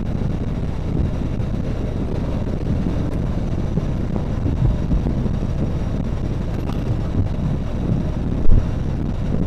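Riding noise from a moving motorcycle: wind blasting the microphone over the engine and tyres, with one brief louder knock or gust near the end.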